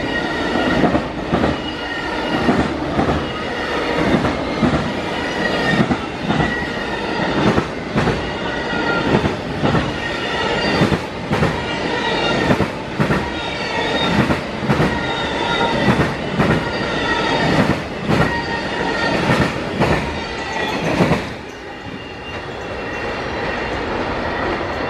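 Amtrak Auto Train autorack cars rolling past at speed, their wheels clicking in regular pairs over rail joints and switches, with a high steady wheel squeal. The clicking stops about 21 seconds in as the last car passes, leaving a fading rumble.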